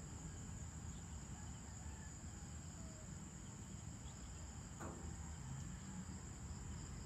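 Steady high-pitched trilling of an evening insect chorus, with a low steady rumble beneath it.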